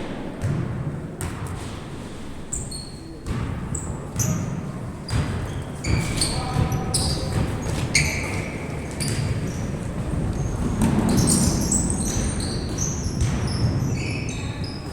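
Basketball being dribbled on an indoor court, with repeated knocks and many short, high sneaker squeaks echoing in a large hall. Voices call out among them.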